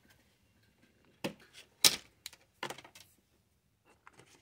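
Plastic model parts being handled: four or so short clicks and taps as sheet-plastic pieces knock against each other and the board, the loudest near the middle.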